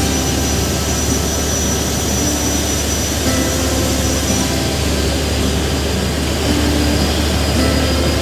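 Steady engine drone of a motorboat heard from on board as it runs across open river water, a constant low hum under a rushing noise of water and wind.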